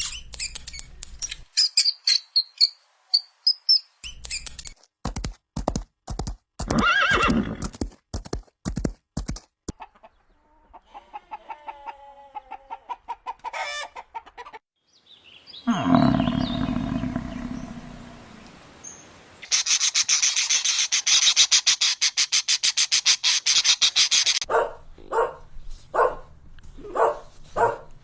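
A series of different farm animal calls in turn, among them a horse neighing. The calls come as separate short clips: chirps early on, a loud call about 16 s in that starts high and falls, a dense rapid stretch from about 20 to 24 s, and evenly spaced short calls near the end.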